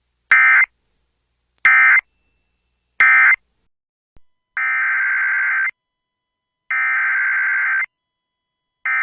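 Emergency Alert System SAME digital data bursts, harsh buzzy warbling tones. Three short end-of-message bursts come first, marking the end of the severe thunderstorm warning. About four and a half seconds in, three longer header bursts follow, opening the next alert.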